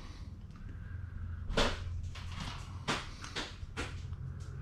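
A handful of separate sharp clicks and knocks, the loudest about a second and a half in, from metal parts or tools being handled on a workbench. A steady low hum runs underneath.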